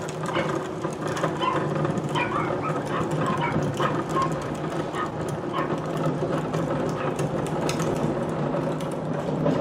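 Two wheeled plastic trash carts (polybins) being pulled along on their hard plastic wheels, rattling and clattering over the pavement.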